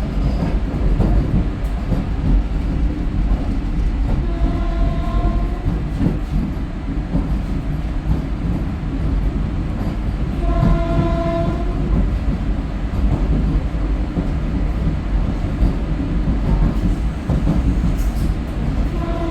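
Vande Bharat Express electric train running along the track with a steady rumble. Its horn sounds twice, each a single blast of about a second, at about four and a half seconds and about eleven seconds in, and starts again at the very end.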